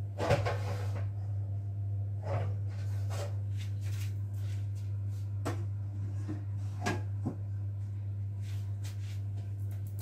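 A steady low hum with a few light knocks and clicks, spread out, from things being handled on a kitchen counter.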